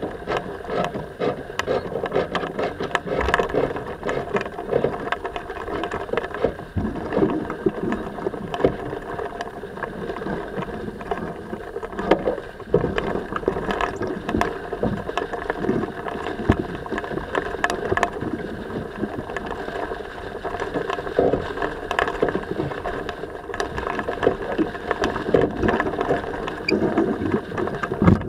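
A sailing keelboat under way: steady wind and water noise with frequent clicks and knocks from the rigging and deck gear.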